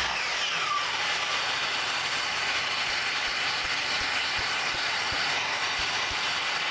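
Electric sliding miter saw running while it cuts small softwood blocks: a steady, even noise, with a short falling whine about half a second in.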